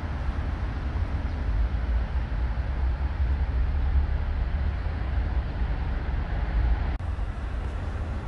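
Steady low rumble of wind buffeting the microphone outdoors.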